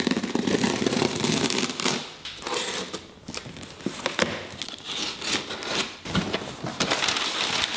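Cardboard shipping box being opened by hand: cardboard flaps scraping and brown packing paper crinkling as it is pulled out. The first two seconds hold a denser stretch of rasping noise.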